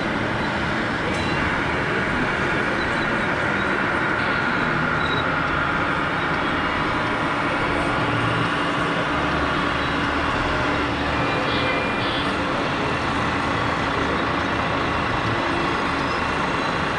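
Radio-controlled scale construction models at work: a steady din of small electric motors and hydraulic pumps with a high whine that drifts slightly lower partway through, over the general noise of a busy exhibition hall.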